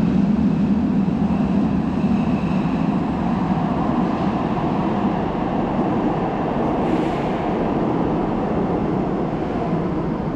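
Train running past with a steady rumble of wheels on track.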